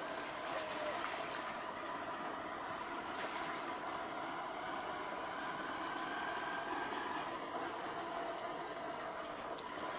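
Small motor scooter engine running steadily at low riding speed, with tyre noise on the wet pavement.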